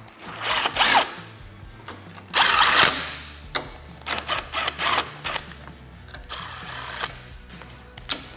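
Cordless power driver running in short bursts as it snugs bolts on a clamp-on mount. There are two longer bursts, then a quick run of brief pulses around four to five seconds and a softer burst near seven seconds, with background music underneath.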